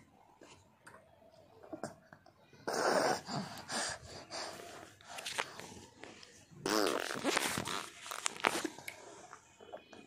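A baby making a noisy sputtering sound with his mouth in two bursts, one about three seconds in and a longer one about seven seconds in.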